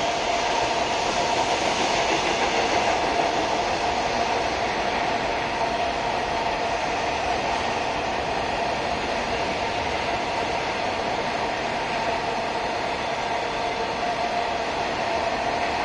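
An unseen train on the line: a steady rushing noise with a constant hum in it, swelling slightly a couple of seconds in.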